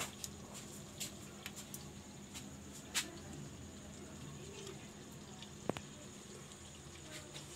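A few sharp clicks and taps, the loudest about three seconds in and again near six seconds, over a steady low room hum.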